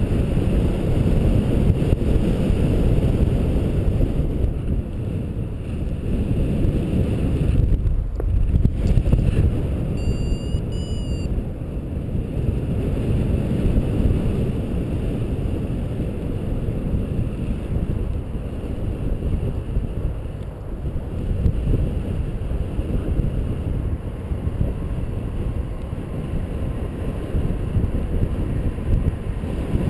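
Wind noise from the airflow over the microphone in gliding flight: a steady, heavy rushing that swells and eases. A brief high whistle-like tone sounds about ten seconds in.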